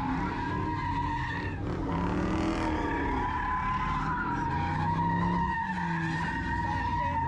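Car tyres squealing in one long, steady screech, with the engine underneath rising and falling in pitch.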